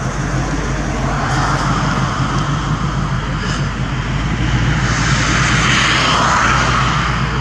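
A steady engine drone with a rushing hiss that swells and fades twice.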